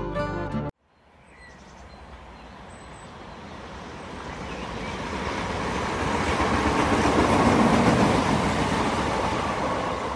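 Running noise of a suburban commuter train heard from inside the carriage beside an open window: a steady noise that grows louder over several seconds, then eases slightly. A few moments of music end abruptly just before it begins.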